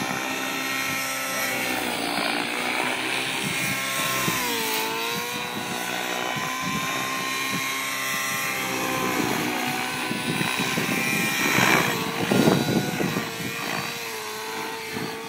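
Align T-Rex 700N nitro RC helicopter flying aerobatics: its two-stroke glow engine and rotor head give a high, steady whine. The pitch dips briefly about four seconds in and comes back up. A few bursts of rushing noise come near the end.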